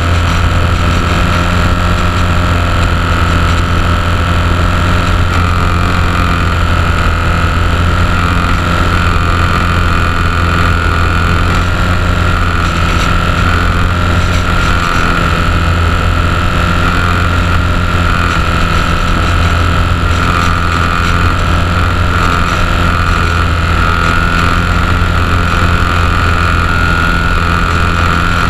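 HobbyZone Champ micro RC plane's electric motor and propeller running steadily in flight, heard close up from a camera mounted on the plane: a loud, high whine that wavers slightly, over a low drone.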